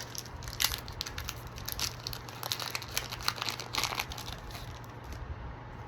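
Foil wrapper of a Pokémon trading card booster pack crinkling as it is handled and torn open. The crackle comes in quick irregular bursts through most of the sound and dies down near the end.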